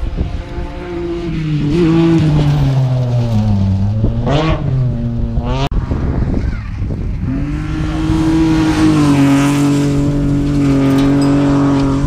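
Rally cars at full speed on a gravel stage: an engine note falls in pitch, then climbs sharply as the car accelerates hard. After a break, another rally car's engine is held at a steady high pitch.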